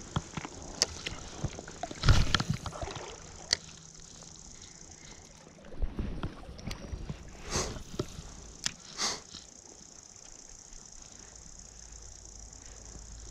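Steady rush of a flowing river, with several bursts of water sloshing and splashing, the loudest about two seconds in, and scattered light clicks.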